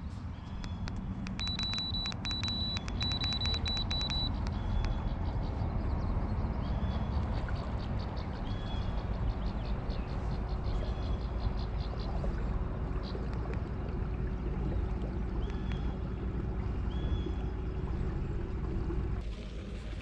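Minn Kota i-Pilot electric trolling motor running on a bass boat, under a steady low rumble of wind and water. A quick run of short high beeps from the i-Pilot remote comes early on, and a faint steady whine comes in partway through. The rumble drops away just before the end.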